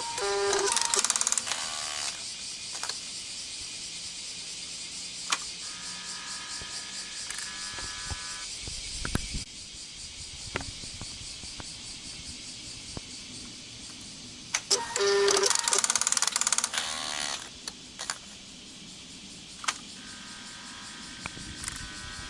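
Suzuki GSX-R750 exhaust-valve servo motor running with a loud buzzing, rattling grind twice, each for two to three seconds, at the start and about 15 seconds in, with shorter, smoother whirs between, over a steady hiss. The owner suspects the servo's gears are slipping or a torque limiter is engaging.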